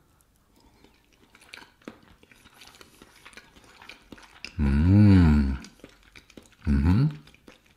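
A person chewing a mouthful of scrambled quail egg, with soft wet mouth clicks, then humming "mmm" in appreciation: one long hum about five seconds in, rising and falling in pitch, and a shorter rising one near the end.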